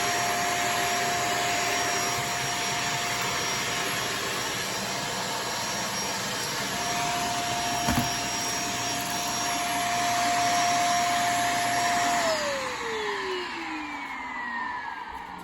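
Shark DuoClean vacuum cleaner running steadily with a high motor whine, with a single sharp knock about halfway through. A few seconds before the end it is switched off and the motor winds down with a falling whine.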